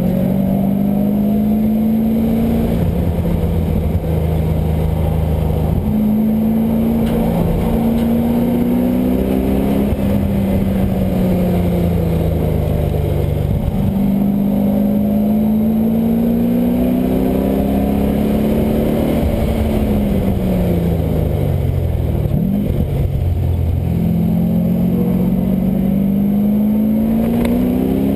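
LS1 V8 engine in a Mazda Miata pulling hard through the gears, its pitch climbing and dropping sharply at each upshift. About two-thirds of the way through the revs fall away, as when lifting off for a corner, then climb again.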